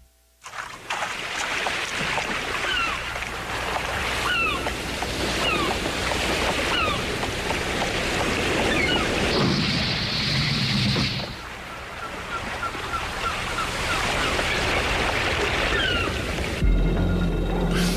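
Surf washing steadily over a rocky shore, with short high falling cries now and then. Music comes in near the end.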